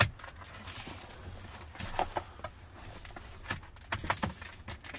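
Scattered taps, clicks and light rustling of a stiff WeatherTech reflective sunshade as it is pressed and pushed into a minivan's rear side window frame by hand. There is a sharp click right at the start.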